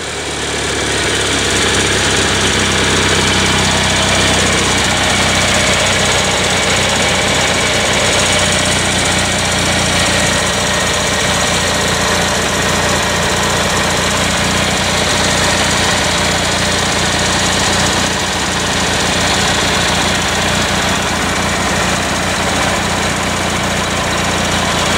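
Kohler Magnum 18 hp two-cylinder vertical-shaft engine on a riding mower, running steadily.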